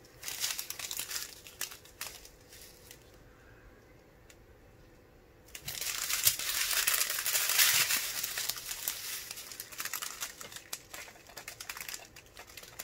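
A strip of clear plastic drill bags crinkling as it is handled, a short burst at first, then louder and longer crinkling from about halfway that thins out near the end.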